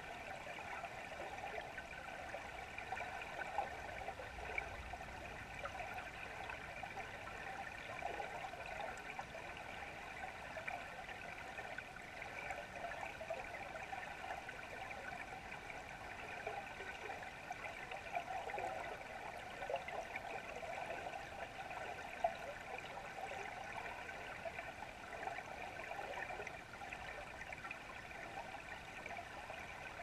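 Muffled underwater ambience picked up by a submerged camera: a steady watery hiss with a couple of brief faint ticks.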